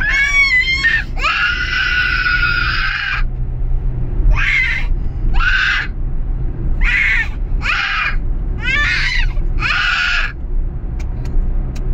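A young child's high-pitched screams: a short wavering one, a long one of about two seconds, then six shorter ones about a second apart, stopping about ten seconds in. Under them runs the steady low rumble of a car's cabin on the move.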